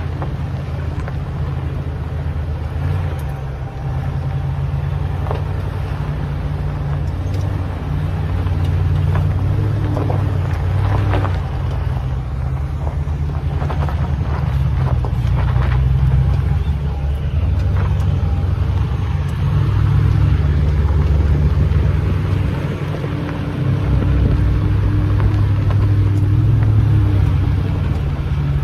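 Toyota Tundra pickup driving slowly up a dirt road in four-wheel drive: a steady low engine and road rumble that swells and eases, with scattered knocks and rattles.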